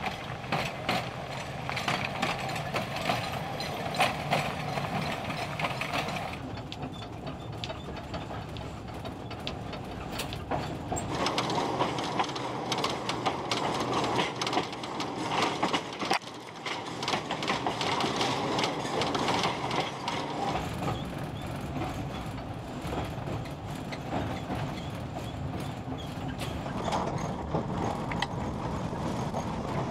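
Tram running on old, crooked rails, with steady running noise and frequent clacks and rattles. The sound changes character about six and again about eleven seconds in.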